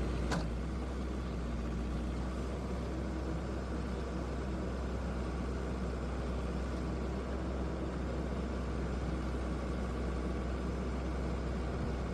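Backhoe's diesel engine running steadily, a constant low rumble.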